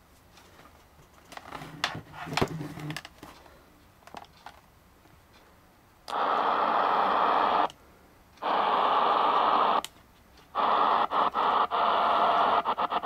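Grundig Yacht Boy 400 portable radio on AM giving loud hissing static with no station, as it is tuned up the band in 9 kHz steps. The static comes in stretches of a second or so broken by short silences, and near the end it chops on and off rapidly as the frequency keeps stepping. Before the static, a few sharp button clicks.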